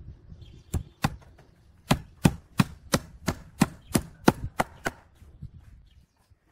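Homemade steel hammer, made from a piece of railway rail, driving a nail into a wooden plank: two blows, then after a short pause a run of about ten sharp blows at roughly three a second.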